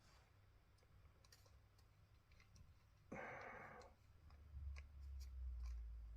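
Faint scattered clicks of small metal lighter parts and a screwdriver being handled during reassembly. There is a brief rustle about three seconds in and a low rumble in the second half.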